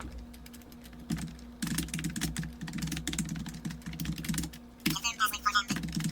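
Typing on a computer keyboard: rapid keystrokes in two quick runs, with a short pause a little before the end.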